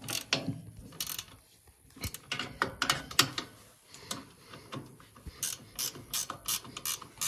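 Ratchet wrench clicking in uneven runs as a bolt is tightened by hand, speeding up to a steady few clicks a second near the end.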